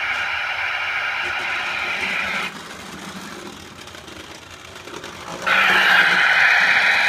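Lionel 8404 Pennsylvania Railroad steam turbine O-gauge locomotive running on three-rail track, its motor and gears whirring with the wheels rolling. The sound drops off suddenly about two and a half seconds in, then comes back louder about five and a half seconds in as the locomotive passes close.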